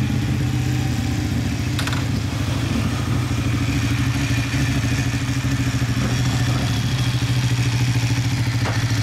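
Ducati motorcycle's V-twin engine idling steadily, with an even rapid pulse and no revving.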